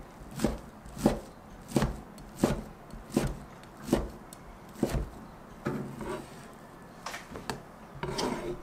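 Chef's knife slicing through sheets of fish cake and striking a plastic cutting board: about seven evenly spaced knocks in the first five seconds, then a few softer ones.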